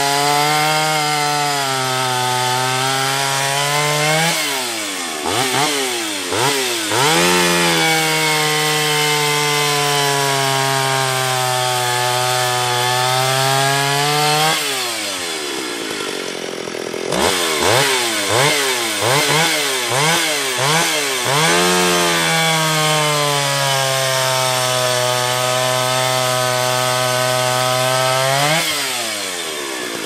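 Old Stihl 031 AV two-stroke chainsaw cutting through seasoned oak in three long cuts, its engine held at a steady pitch under load in the wood. Between cuts the throttle is blipped up and down several times, and the saw drops briefly to idle about halfway through.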